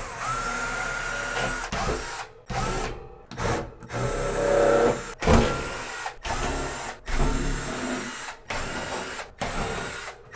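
Milwaukee cordless drill backing long screws out of a wire closet shelf's wall clips, its motor whining in a string of about ten short trigger bursts with brief pauses between them.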